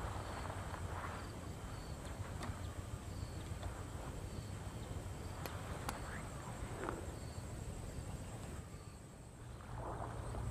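Rustling of tall grass and footsteps as someone walks through it, over insects chirping in short, regular high notes with a steady high whine behind them. A low wind rumble on the microphone runs underneath.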